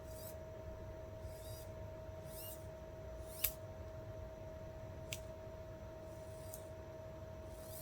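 Two small sharp clicks and a few light scrapes, with a steady high-pitched electrical hum underneath.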